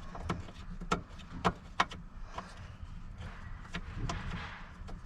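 Irregular sharp clicks and knocks from tools and seat hardware being handled, then a soft rustling near the end, over a low steady hum.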